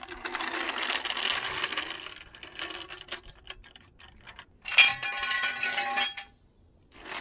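Ratchet wrench clicking as a 10 mm bolt is run in under the car. About five seconds in comes a sharp metallic clink that rings for over a second, then the sound cuts off.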